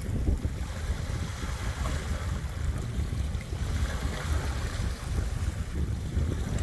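Small waves washing on a beach at ebb tide, with wind buffeting the microphone in a heavy, uneven low rumble.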